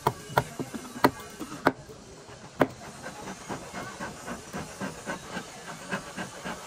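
Hammer striking the timber frame of a wooden boat: five sharp blows in the first three seconds. After that comes a quicker run of fainter ticks over a steady hiss.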